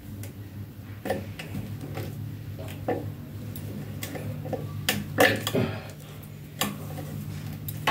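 Irregular metallic clicks and clinks of faucet parts and fittings being handled and fitted during a faucet replacement, with a denser, louder cluster about five seconds in, over a steady low hum.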